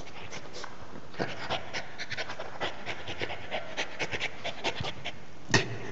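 French bulldog panting with quick, irregular breaths while it wriggles on its back on a carpet. There is one louder thump a little before the end.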